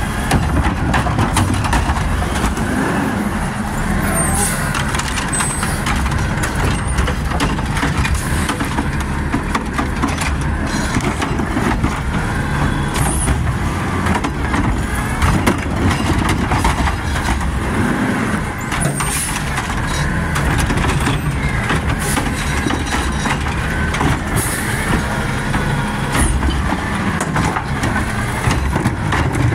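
Garbage truck's engine revving hard and fast to drive the hydraulic side-loader arm as it lifts and tips wheeled carts into the hopper, one after another. Several sharp bangs and air hisses break through the engine sound.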